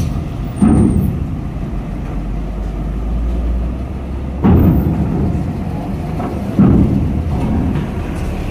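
A heavy diesel cargo truck drives slowly off a ferry ramp onto steel deck grating, its engine rumbling low. Three heavy thuds come as its wheels cross the ramp plates: just under a second in, around the middle, and about two-thirds through.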